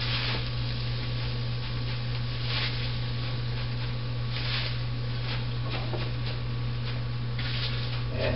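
Rapini (broccoli rabe) tipped from a bowl into a hot frying pan: the leaves rustle and the pan sizzles in a few short spurts over a steady low hum.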